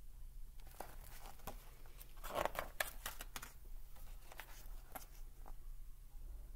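Paper rustling and crisp swishes as a page of a large picture book is turned and the book is handled, loudest around two and a half seconds in.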